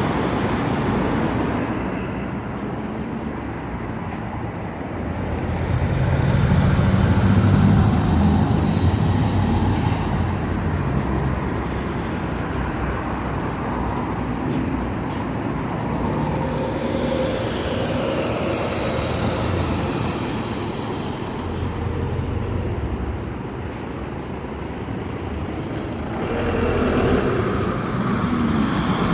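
Road traffic: motor vehicles passing steadily, with a heavy vehicle's low engine hum loudest about six to ten seconds in.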